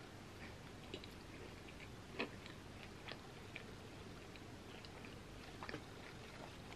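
Faint chewing with a closed mouth: soft wet clicks and small smacks at uneven intervals, one a little louder about two seconds in.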